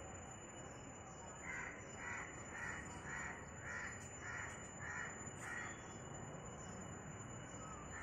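A bird calling eight times in an even series, the calls about half a second apart, starting about a second and a half in.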